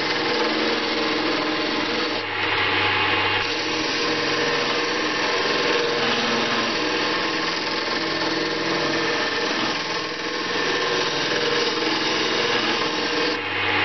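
Wood lathe running while a hand-held turning tool cuts into a spinning banksia seed pod: a continuous rasping scrape over the steady hum of the lathe motor.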